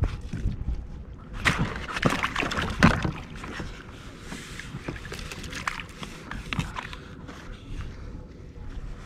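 Water splashing and sloshing beside a kayak as a small horse mackerel is landed in a landing net, with scattered clicks and knocks of gear against the hull. The splashing is loudest between about one and a half and three seconds in, then quieter.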